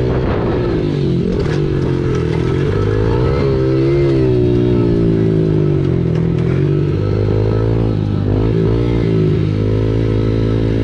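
Yamaha TT-R110 pit bike's small single-cylinder engine running under way, loud, its pitch rising and falling several times as the throttle opens and closes.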